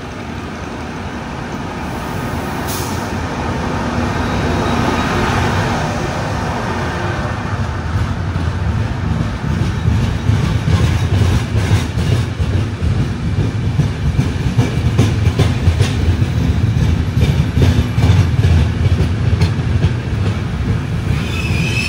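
A Trenitalia Intercity Notte passenger train, hauled by an E401 electric locomotive, pulls into the platform. Its coaches roll past with a low rumble that grows louder, then rapid clicking of wheels over rail joints. A high squeal from the wheels sets in near the end as it slows.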